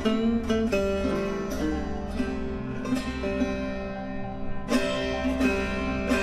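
Background music: a plucked string instrument picking a run of notes over a steady low bass.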